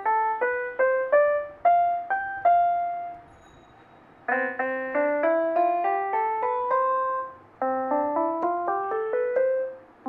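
Casio SA-78 mini portable keyboard being played to demonstrate its built-in tones: a short run of single notes, a pause of about a second, then two rising runs of notes.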